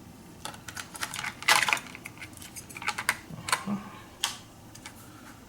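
A series of irregular small clicks and knocks, the loudest about one and a half seconds in: hands handling an opened multi-effects unit's circuit board and small tools.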